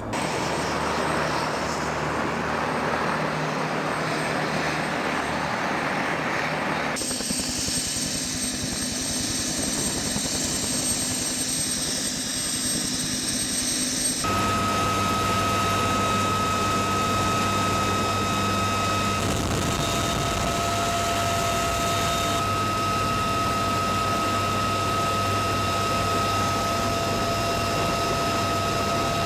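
Military helicopter turboshaft engines running: a rushing noise at first, then a hiss, then from about halfway a steady high whine over a low hum. The sound changes abruptly twice.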